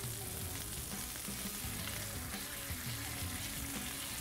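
Beef burger patty frying with a steady sizzle on a hot cooking surface.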